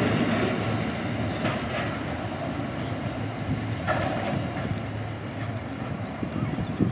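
Rumble of a long coal train's hopper wagons rolling along narrow-gauge track and fading as the train draws away, with a couple of faint clacks from the wheels.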